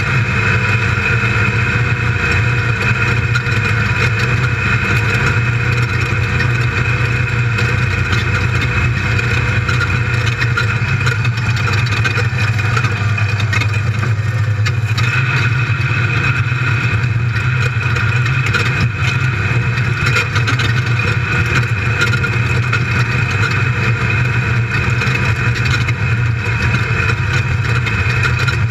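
Race buggy's built LS1 V8 running steadily at speed, heard from inside the open cabin as a constant drone mixed with the noise of the car travelling over the dirt.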